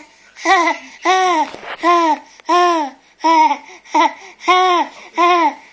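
Baby laughing in a run of about eight loud, open-mouthed 'aah' calls, each rising and then falling in pitch, coming roughly one and a half times a second.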